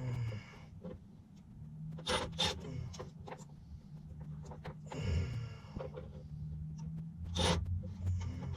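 Scattered rubbing and scraping with a few sharp clicks, as of hands and tools working on sheet-metal panels, over a low steady hum.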